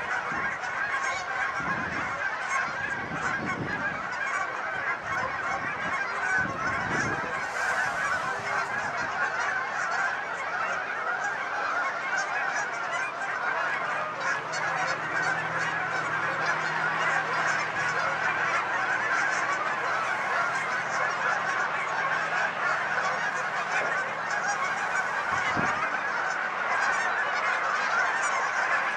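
A large flock of Canada geese honking, many calls overlapping without a break.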